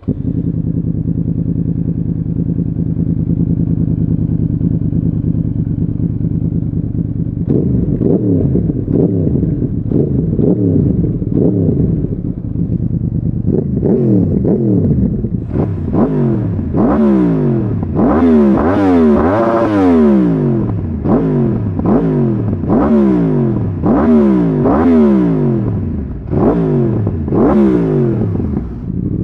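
2014 Yamaha YZF-R1's crossplane inline-four with a slip-on exhaust, idling steadily for about seven seconds, then revved again and again, each rev rising and falling in pitch. From about halfway through, the revs go higher and come roughly every second or so.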